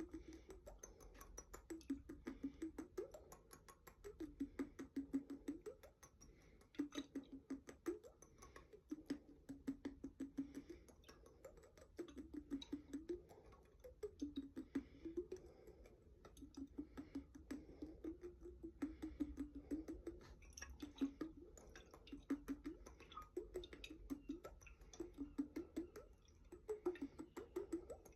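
Fingers tapping and handling a glass jar of water: many rapid light taps and clicks, with short bursts of a low ringing tone from the jar that wavers in pitch every second or so.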